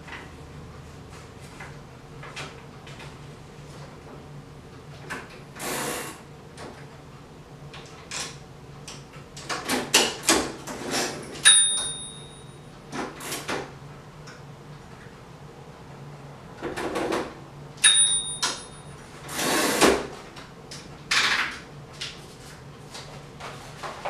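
A 1926 Remington No.12 typewriter being loaded with paper: scattered clicks, rattles and sliding scrapes as the paper is fed round the platen and the carriage is moved. The carriage bell gives a short ding twice, about halfway through and again near three-quarters.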